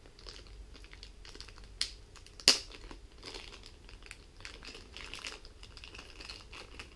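Thin clear plastic bag crinkling and crackling as hands unwrap a tiny RC car from it, with two sharp clicks about two and two and a half seconds in, the second the loudest.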